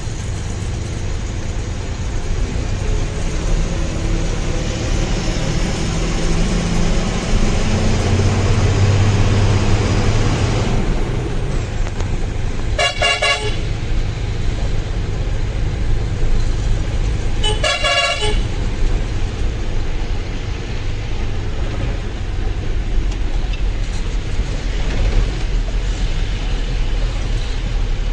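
Truck engine running, swelling and rising in pitch for several seconds before easing off about ten seconds in, with two short horn blasts about five seconds apart near the middle.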